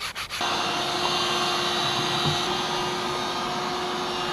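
A few last hand-sanding strokes on wood, then a shop vacuum comes on suddenly about half a second in and runs steadily with a constant hum and hiss.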